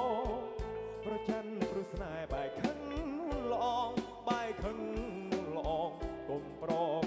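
Cambodian modern band music: a melodic lead with heavy vibrato over a steady drum beat.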